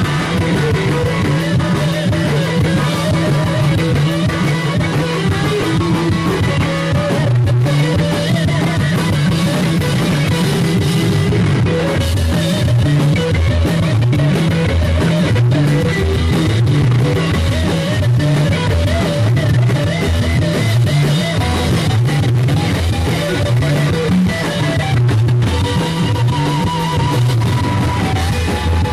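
Rock band playing live: electric guitars over bass guitar and drum kit.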